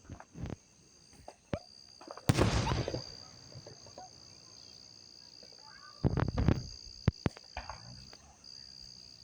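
Fireworks going off: a loud bang about two seconds in with a short crackling tail, then two more bangs close together about six seconds in and a few fainter pops. Insects chirr steadily in the background.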